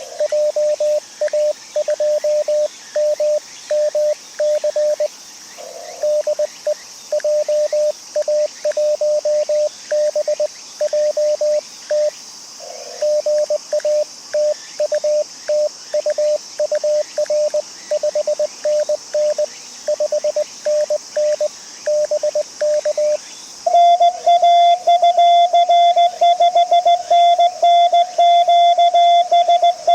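Morse code (CW) from an amateur radio transceiver: a single tone near 600 Hz keyed in rapid dots and dashes, with short pauses of filtered receiver hiss between groups. About 24 seconds in, the keyed tone turns louder and slightly higher-pitched and keeps sending.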